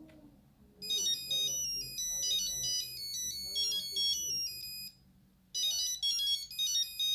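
Nokia 8210 monophonic ringtone playing from the phone's speaker: a quick melody of high beeping notes that starts about a second in, stops just before five seconds, and starts over after a short pause.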